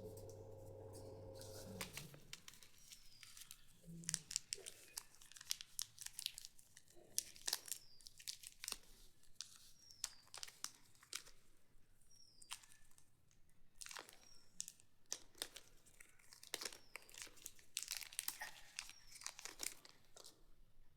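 Plastic chocolate-bar wrappers being crinkled and torn open by hand: a long run of irregular sharp crackles and rustles.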